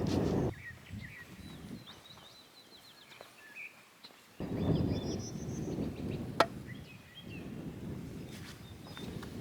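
Outdoor ambience with small birds chirping and trilling, over a low rustling noise that drops away about half a second in and comes back about four and a half seconds in. There is a single sharp click partway through.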